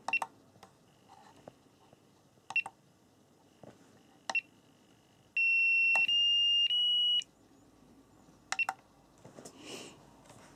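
SkyRC T100 dual balance charger beeping as its front-panel buttons are pressed. Short single beeps come a couple of seconds apart, then a louder, longer tone in three steps, each a little higher in pitch, about five seconds in. A quick double beep follows near the end.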